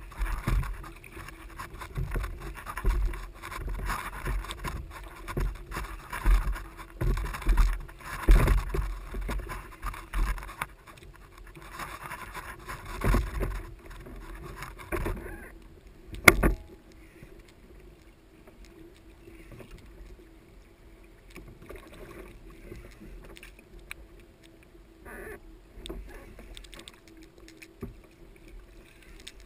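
Sea water slapping and splashing against a plastic fishing kayak's hull, with wind gusting on the microphone, louder and choppier through the first half and calmer after. A single sharp knock comes about sixteen seconds in.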